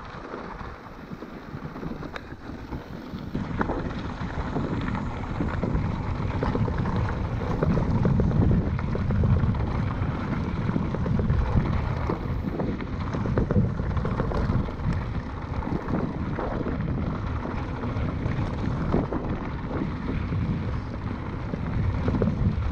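Wind buffeting the microphone of a camera on a moving mountain bike, a heavy fluctuating rumble, with light rattling and clicks from the bike on a rough dirt track. It grows louder a few seconds in as speed builds.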